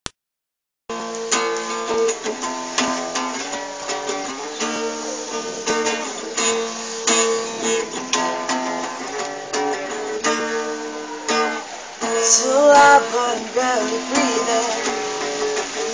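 Acoustic guitar playing a picked and strummed chord intro, starting about a second in. Around twelve seconds in a voice briefly joins with a wavering, sliding note, the loudest moment.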